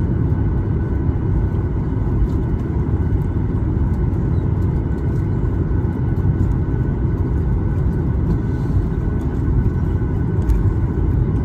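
Steady low rumble in the cabin of a Boeing 737-800 taxiing after landing: its CFM56 engines at taxi power and the aircraft rolling along the taxiway, with a faint steady whine over it.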